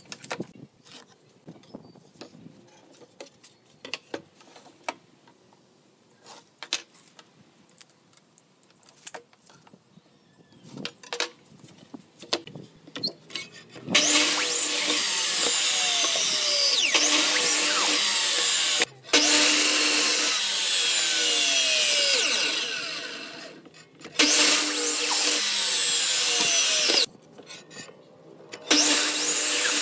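Light clicks and taps of a tape measure and steel square on a pallet board. About halfway in, a compound mitre saw starts running and crosscutting pallet boards in several loud stretches, winding down once partway through.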